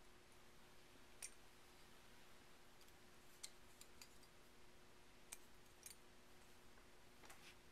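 Near silence with about six faint, scattered clicks of a small screwdriver working a screw out of the metal trigger guard of an old Gahendra Martini rifle.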